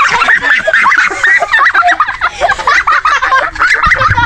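Several children laughing and giggling together, many voices overlapping.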